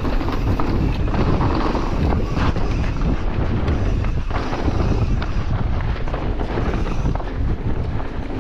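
Mountain bike descending a dirt trail at speed: wind rushing over the microphone, tyres rolling over the dirt, and scattered knocks and rattles from the bike over bumps.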